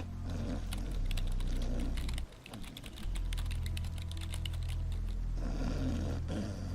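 Rapid computer-keyboard typing, many quick clicks, over a heavy bass-boosted bass line that drops out for about a second near the middle. A loud snore swells in near the end.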